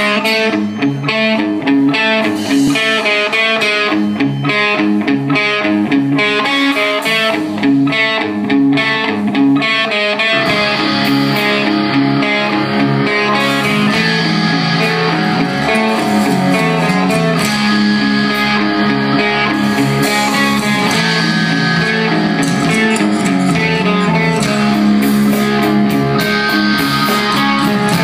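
Live rock band playing: electric guitars and drum kit. A choppy, stop-start riff gives way about ten seconds in to a fuller, more continuous section with more low end.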